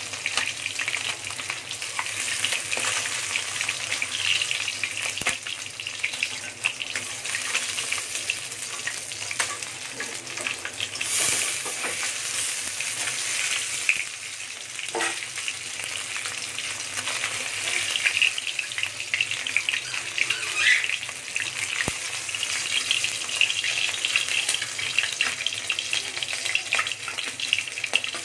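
Pieces of kalibaush fish frying in hot oil in a metal kadai, a steady crackling sizzle, with occasional scrapes and clinks of a steel spoon and spatula against the pan as the pieces are lifted out.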